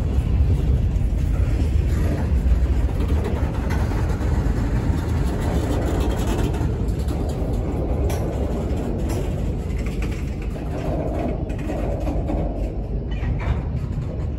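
Freight cars, a tank car and covered hoppers, rolling past at close range: a steady rumble of steel wheels on the rails, with a few sharp clicks.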